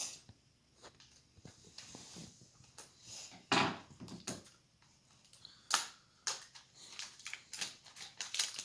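A cardboard mystery box of baseball cards being handled and opened: scattered scrapes and crinkles of cardboard and packaging, with a louder rustle about three and a half seconds in, a sharp click near six seconds, and busier rustling toward the end.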